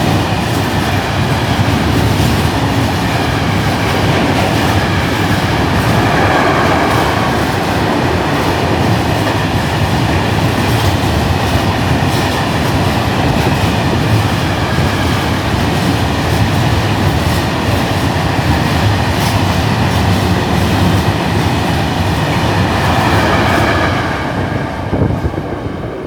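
A train passing close by: a steady loud rumble of wheels on rail with the clatter of wheels over rail joints. It starts to fade away a couple of seconds before the end.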